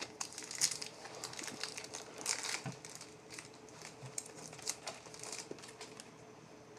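Crinkling and rustling of trading cards and their wrapper being handled, in quick irregular crackles, busiest in the first few seconds, over a faint steady hum.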